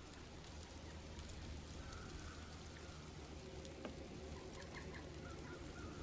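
Faint forest ambience: a steady low rumble with scattered soft clicks and a few brief, faint bird chirps, three quick ones near the end.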